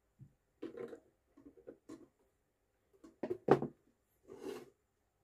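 Clicks and knocks of a mechanical scale's casing being handled and opened, with two sharp knocks about three and a half seconds in and a brief rustle after them.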